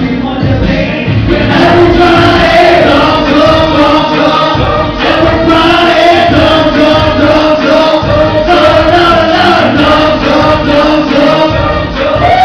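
Loud pop music playing, with long held choir-like vocal notes over the backing track.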